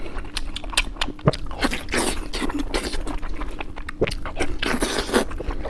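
Close-miked mouth sounds of eating spicy braised pork belly: chewing with many short, irregular smacks and clicks.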